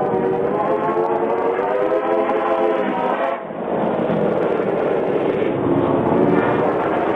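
Train sound effect: a continuous pitched drone with slowly wavering harmonics, dipping briefly about three and a half seconds in, with the muffled top end of a VHS recording.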